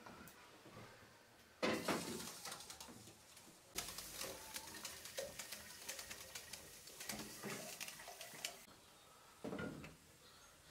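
Water poured from an aluminium jug into a stainless steel teapot, a splashing stream lasting about five seconds. Metal pots clank as they are handled, once before the pour and again near the end.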